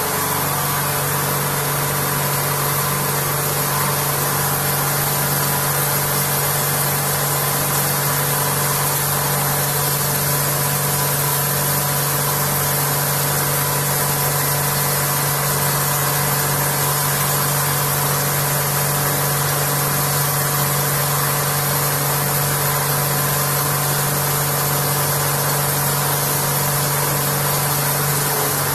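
CNC vertical machining centre face-milling aluminium: the spindle and face mill running steadily, a constant hum under an even cutting hiss.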